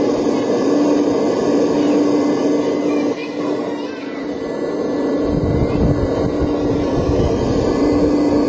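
Scale RC excavator running as it swings and digs sand, a steady mechanical whirr with a humming tone that cuts out and back in, and a deeper rumble joining about five seconds in.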